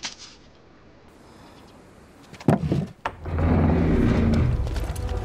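Heavy wooden double doors being pushed open: a sharp wooden knock about halfway through, a second one half a second later, then a low sustained rumble.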